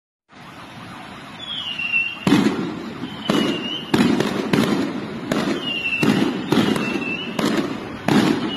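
Fireworks going off: sharp bangs about once a second, starting about two seconds in, several of them preceded by a short falling whistle.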